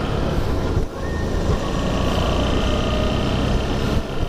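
Motorcycle engine running at road speed, with wind rushing over the camera's microphone. The sound breaks off sharply about a second in and again near the end, as separate riding clips follow one another.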